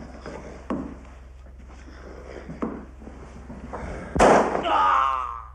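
A couple of soft knocks, then about four seconds in a single loud gunshot, followed at once by a voice crying out.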